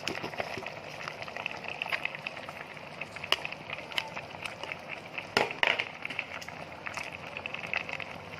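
Food cooking in a pan on the stove, sizzling and crackling with many small pops. A few pops are louder, the loudest about five and a half seconds in.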